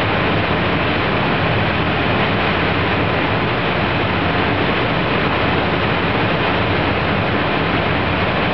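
Steady rushing noise with a low hum beneath it, like a fan or blower running.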